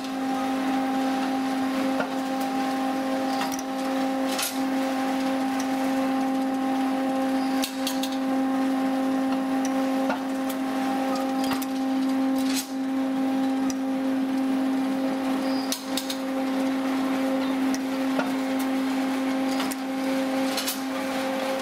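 Electric noodle-cutting machine running steadily: a constant motor hum with rollers and cutter turning, and a few sharp clacks every few seconds.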